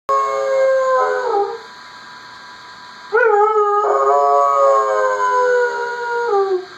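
Dog howling at a phone alarm: two long howls, the first about a second and a half, the second about three seconds. Each dips in pitch as it trails off.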